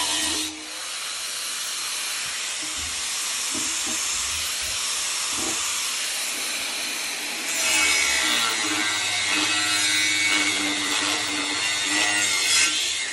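Angle grinder with a cut-off disc cutting through the wall of a steel scuba tank: a steady hissing grind over the motor's whine. It eases off briefly about half a second in and bites in louder from about seven and a half seconds in.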